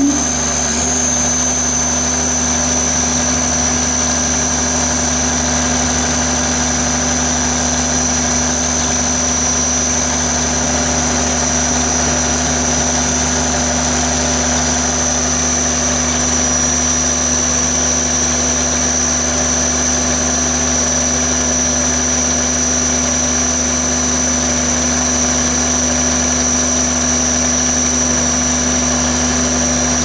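Cummins 6BT5.9 six-cylinder 5.9-litre diesel power unit running steadily, with a steady high-pitched whine over the engine note.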